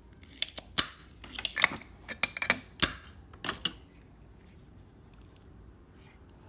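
A quick irregular run of sharp clicks and knocks from a circuit board and desoldering tools being handled while a desoldered power MOSFET is worked free, stopping about four seconds in.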